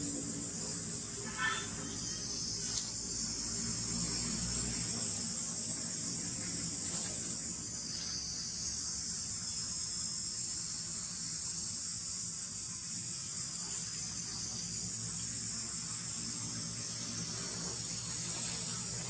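Steady, high-pitched chorus of insects droning without a break in the surrounding forest.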